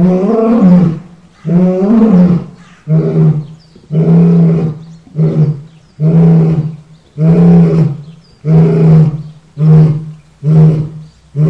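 Lion roaring in a bout: two long, drawn-out roars, then a run of shorter roars repeated about once a second.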